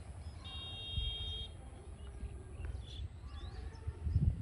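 Birds chirping faintly over a low, uneven rumble. About half a second in, a held whistling note lasts about a second.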